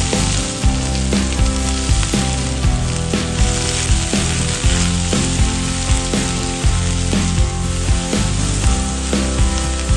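Food frying in hot oil in a pan, a steady sizzle, under background music with a steady beat.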